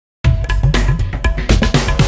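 Background music with a driving drum and percussion beat, starting abruptly about a quarter second in.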